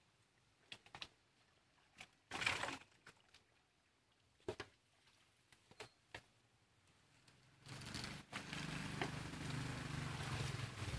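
Scattered knocks and scrapes from hand work clearing wet muck out of a drain into a steel wheelbarrow. About eight seconds in, a steady low rumble starts.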